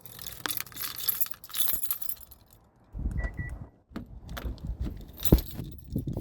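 Keys jangling, then a low rumble with two short high beeps about three seconds in, followed by knocks and one sharp thump about five seconds in.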